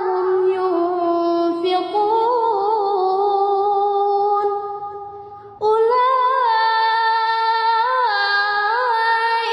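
A high voice chanting Quran recitation melodically, holding long ornamented notes. The voice fades out about halfway through and then comes back suddenly with a new long phrase.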